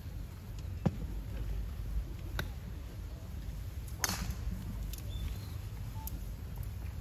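Golf clubs striking balls: a few sharp, separate clicks a second or more apart, the loudest about four seconds in, over a steady low outdoor rumble.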